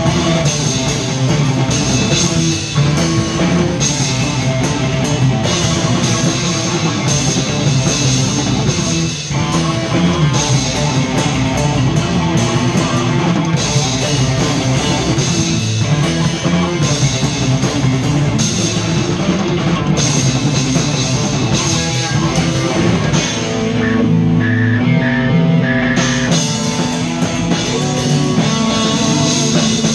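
Rock band playing live: drum kit with crashing cymbals, two electric guitars and electric bass. Near the end the cymbals drop out for about two seconds, leaving the guitar and bass notes, then the full band comes back in.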